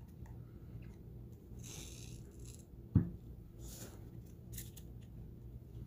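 Trading cards being handled and slid across a cloth playmat: a few soft brushing sounds and one sharp tap about three seconds in, over a low steady hum.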